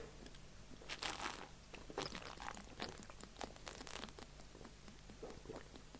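Faint, irregular gulping and swallowing as pilsner is chugged straight from a glass bottle.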